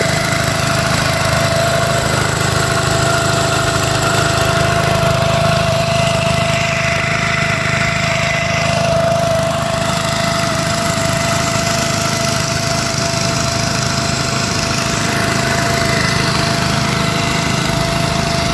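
Engine of a Warthog floating pump running steadily at constant speed while it pumps floodwater, with a steady whine above its drone.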